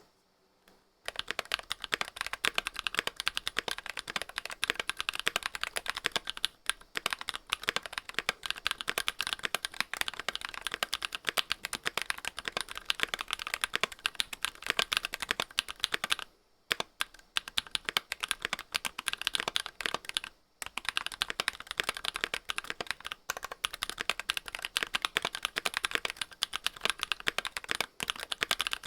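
Fast, continuous typing on a TS60 keyboard: a dense stream of key clicks that starts about a second in and runs on with a few brief pauses.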